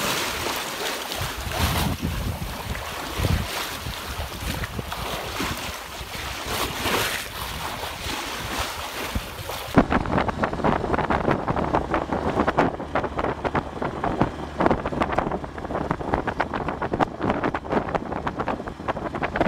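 Water rushing and splashing along the hull of a Hunter 23.5 sailboat moving fast through chop, with wind buffeting the microphone. About ten seconds in the sound changes abruptly to a duller, choppier rush of spray and wind.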